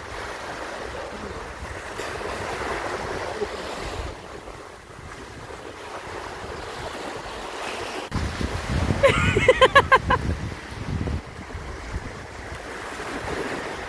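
Small sea waves washing onto a sandy shore, swelling and easing, with wind buffeting the microphone. About nine seconds in, a short, rapidly pulsed voice-like sound stands out as the loudest thing.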